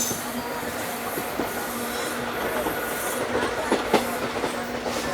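ICF passenger coach running along the track: a steady rolling rumble with wheel clatter over the rail joints, and a couple of sharper clacks about four seconds in.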